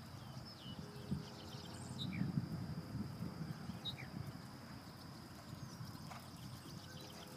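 Muffled hoofbeats of a Thoroughbred horse trotting on sand arena footing, loudest about two seconds in. A few short bird chirps and a steady high-pitched insect buzz run underneath.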